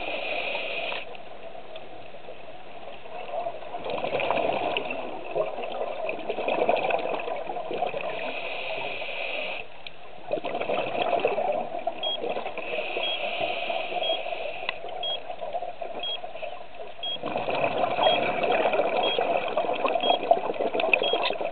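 Scuba regulator exhaust bubbles heard underwater, bubbling in bouts of a few seconds with short lulls between a diver's breaths. A faint high beep repeats about once a second through the second half.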